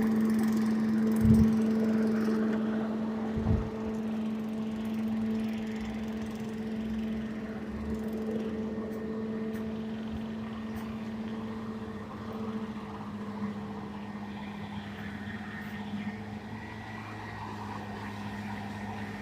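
An engine running with a steady hum that slowly fades away, with two low thumps about one and three and a half seconds in.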